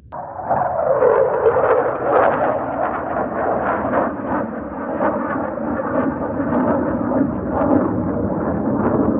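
Military jet engine noise from a low pass: a loud, continuous rumbling roar with crackle, starting suddenly and with a drop in pitch about a second in.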